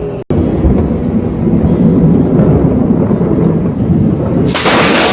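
A loud, low rumbling noise, broken about four and a half seconds in by a sudden loud crash that trails off into a hiss.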